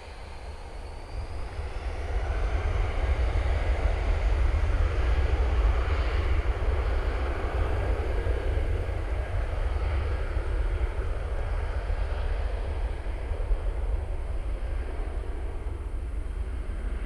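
Jet engines of a Qantas Airbus A330-300 (Rolls-Royce Trent 700s) on its landing run. The engine noise swells over the first two seconds, then holds steady with a deep rumble and eases off slowly towards the end.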